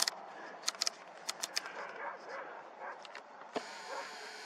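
A handful of short, sharp clicks from the camera's buttons and controls being pressed while zooming and adjusting the settings, bunched in the first second and a half with one more about three and a half seconds in, over a faint steady hiss.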